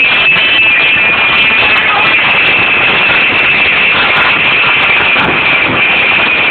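Live band music from a stage, loud and dense.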